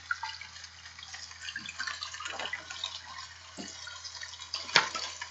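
A hardback picture book being handled and its pages turned: small rustles and clicks over a steady hiss, with one louder knock near the end.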